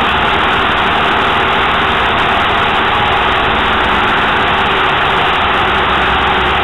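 Steady, loud rush of air around an aircraft in flight, with a faint low hum underneath.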